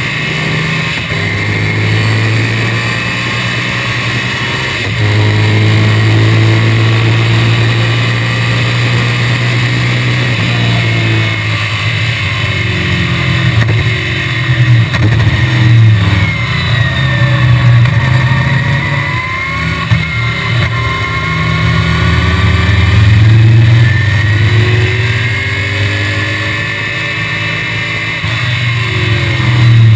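Onboard sound of a 1965 BTM Cheetah roadster's Chevrolet small-block V8 running hard at racing speed. It holds a steady pitch at first, then the revs fall and climb repeatedly through the middle, steady again, and change once more near the end.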